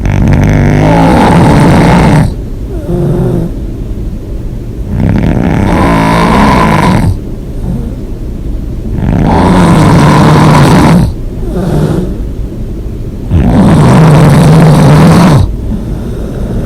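A person snoring hard through an open mouth: four loud, rattling snores, each about two seconds long, coming about every four seconds, with quieter breathing between them.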